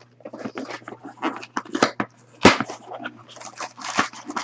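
Cardboard shipping box being handled and pulled open by hand: irregular rustling and scraping of cardboard, with a sharp crack about two and a half seconds in and another knock near the end.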